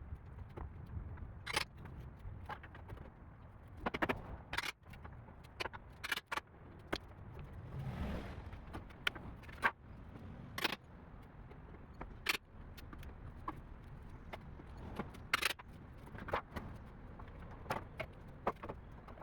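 Irregular sharp knocks and clinks of wooden boards and nails being handled as a wooden crate is taken apart. About a dozen distinct hits are spread unevenly over a low background rumble.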